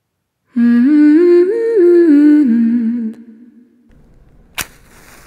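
A woman humming a short tune of a few held notes that step up and then back down, lasting about two and a half seconds. A single sharp click follows about four and a half seconds in.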